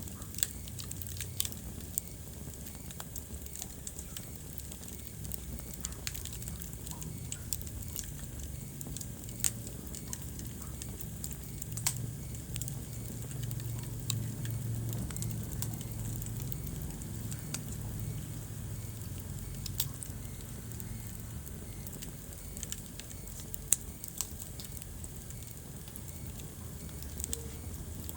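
Wood fire burning in a fireplace: a low steady rumble of flames with frequent irregular sharp crackles and pops, a few louder ones scattered through.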